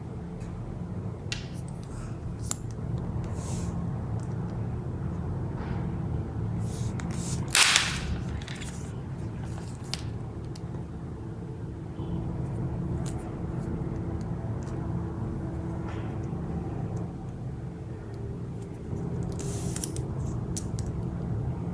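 Steady low background rumble, with scattered light clicks and rustles of handling and one louder rustle about seven and a half seconds in.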